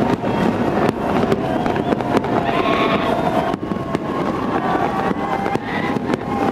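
Harbour fireworks display: repeated bangs and crackles over a continuous dense din.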